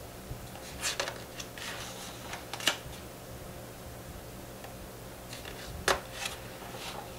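Pages of a large paperback picture book being handled and turned: a few short paper rustles and soft taps, the sharpest about a third of the way in and again near the end, over a low steady hum.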